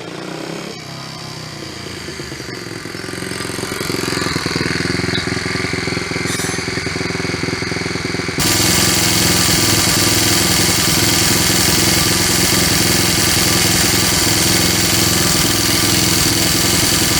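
Honda Monkey's small single-cylinder engine running with a loud, rapid mechanical clatter. This clatter is the abnormal engine noise being chased, first blamed on the cam chain and then suspected to come from the clutch. The sound gets suddenly louder about eight seconds in.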